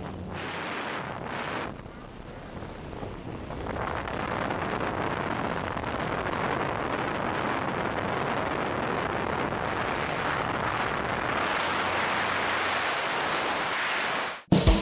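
Wind rushing past an open aircraft door and over the microphone of a twin-engine jump plane at altitude. A low engine drone in the first seconds gives way to a steady rush that builds about four seconds in. Near the end it cuts off abruptly and music starts.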